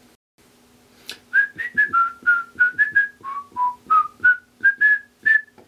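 A short whistled tune of about fifteen quick, clipped notes that step up and down in pitch. It starts about a second in and stops just before the end, over a faint steady hum.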